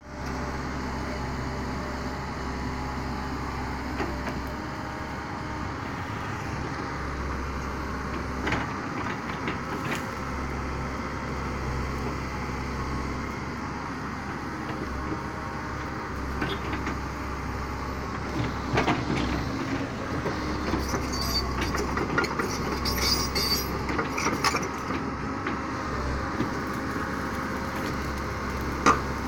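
Komatsu PC130 hydraulic excavator's diesel engine running steadily under working load as the machine digs, with scattered short knocks and scrapes from the bucket working the soil, more of them in the second half.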